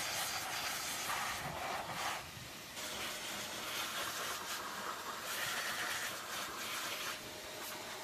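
VEVOR wet/dry vacuum running in blower mode, air rushing out of the nozzle with a steady hiss that dips briefly about two seconds in.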